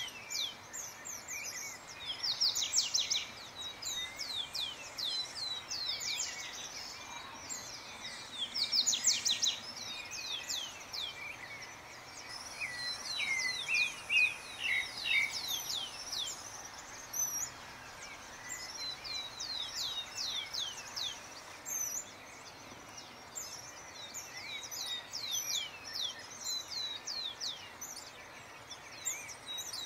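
Several songbirds chirping and calling over a faint steady background hiss: many short, high notes that slide down in pitch, coming in clusters.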